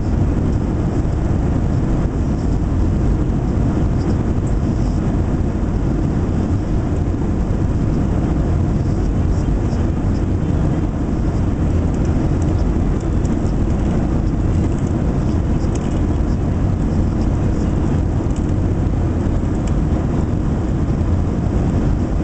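Steady low rumble of a Boeing 737-800 passenger cabin, with faint clicks here and there.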